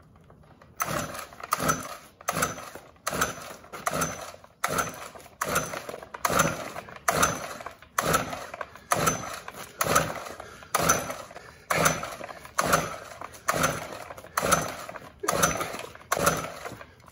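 Gas string trimmer's recoil starter pulled over and over, about once every 0.8 s: each pull is a quick rope whirr as the engine cranks. The engine never catches or runs.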